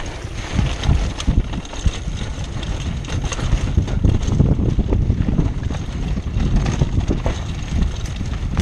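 Wind noise on the microphone over the rattle and knocks of a mountain bike rolling fast down a rough dirt trail, with a constant low rumble and many short jolts from the bumps.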